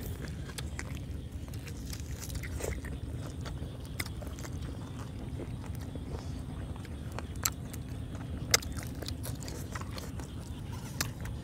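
Close-miked biting and chewing of boiled pig cheek, with scattered crunches and sharp clicks, two louder ones about seven and a half and eight and a half seconds in, over a low steady rumble.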